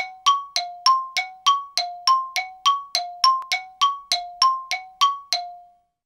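A quick, even series of metallic dings, about three strikes a second, each ringing briefly on two tones. The series stops near the end.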